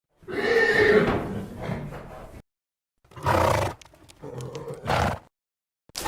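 Horse whinnying: one long call of about two seconds that fades out, then, after a short pause, several shorter, lower-pitched calls in quick bursts, and one more brief call near the end.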